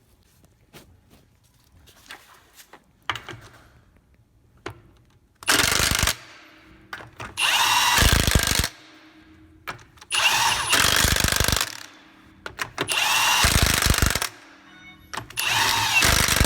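Impact wrench running the wheel fasteners back on in five bursts of about one to one and a half seconds each, a steady hum under the hammering, after a few light clicks and rattles.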